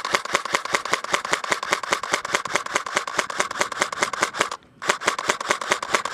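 Airsoft rifle firing full-auto: a fast, even stream of sharp mechanical clicks, about ten a second, in two long bursts with a brief break just past the middle.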